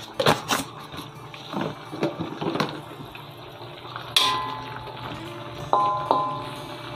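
Wooden spatula stirring in an aluminium wok of pumpkin and leaves, with light clicks at first. About four seconds in, and twice near the end, it knocks against the metal and the wok rings with a clear tone.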